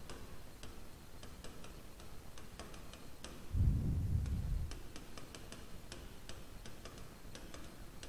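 Stylus tip tapping on a touchscreen as words are handwritten: quick, irregular light ticks, with a low rumble of about a second around the middle.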